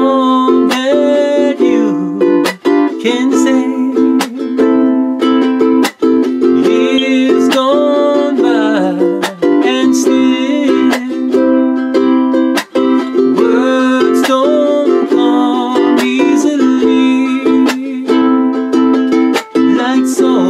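Ukulele strummed in a steady rhythm under a man's singing voice, a slow ballad.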